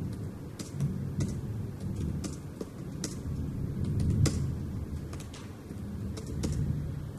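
Irregular light taps of fingers typing on a tablet's on-screen keyboard, over a low rumble.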